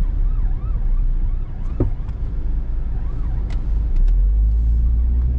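Steady low rumble of road and engine noise inside a car's cabin at highway speed, growing louder about four seconds in. A siren warbles faintly over it, rising and falling about twice a second, and fades out about a second and a half in.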